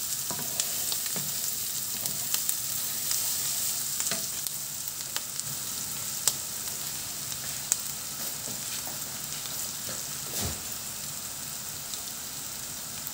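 Chopped onion and rice sizzling in oil in a nonstick pan while being stirred with a wooden spatula, a steady hiss with scattered light taps. A duller knock comes about ten seconds in.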